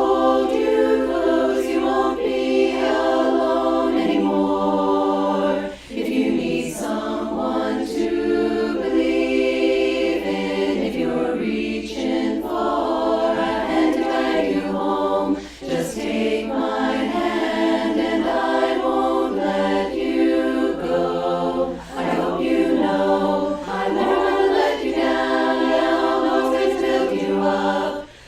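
Choir singing, with brief pauses between phrases.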